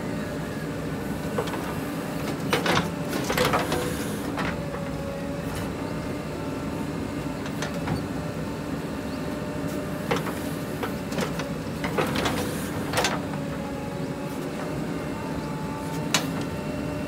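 JCB 3DX backhoe loader's diesel engine running steadily under load as the backhoe arm digs and swings, with brief whining tones from the hydraulics now and then and several sharp metallic clanks from the arm and bucket.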